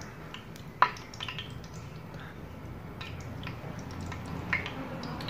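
Pakora batter sizzling and crackling in hot ghee on a flat tawa griddle, with scattered small pops. A single sharp click comes about a second in.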